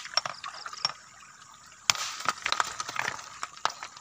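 Handling noise close to the microphone: irregular sharp clicks and scraping as a rock is held and turned in the hand, with a louder rustling stretch starting about two seconds in.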